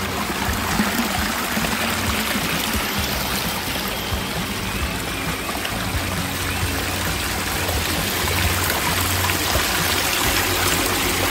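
Water trickling and splashing steadily over rocks in a shallow pond stream and a small waterfall spilling over a flat stone. It is overflow from a full rainwater-harvesting reservoir running down to the lower pond.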